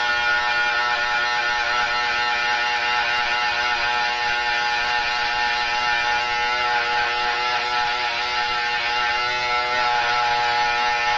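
Electric hair trimmer running with a steady buzz as it is worked against the side of the head, cutting into the hair.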